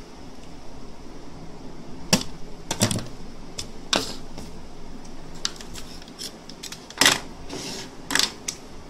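Plastic wrap and foil layers of a cellphone battery being peeled and torn apart by hand: irregular crinkling with sharp crackles and clicks, the loudest near the end.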